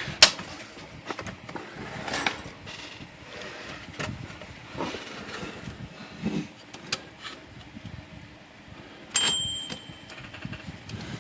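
Metal parts of a Royal Quiet De Luxe manual typewriter being handled during repair: scattered clicks and small knocks, one sharp click just after the start, and one bright metallic ding about nine seconds in that rings on for most of a second.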